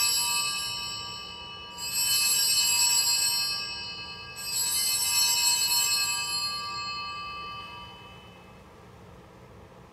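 Altar bells rung three times at the elevation of the chalice. One ring is already sounding, and two more come about two seconds in and about four and a half seconds in. Each rings on and dies away slowly.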